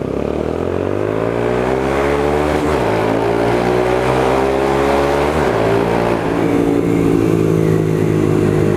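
Yamaha Fazer 250 single-cylinder four-stroke motorcycle engine through an aftermarket exhaust, accelerating with its note climbing. It shifts up about three seconds in and again about five and a half seconds in, then holds a steady note.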